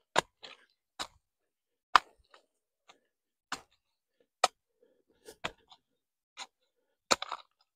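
A metal hoe with a wooden handle chopping into loose soil and dragging it in to fill a planting hole. About eight sharp strikes come roughly one a second, unevenly spaced, with a few fainter scrapes between them.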